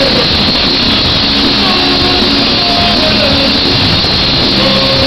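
Horror punk band playing a song live at full volume, with electric guitars and drums, recorded loud and dense from the audience of a large hall.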